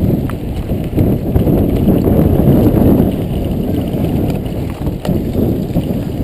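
Mountain bike rattling and knocking over rough dirt trail at speed, with wind buffeting the GoPro's microphone.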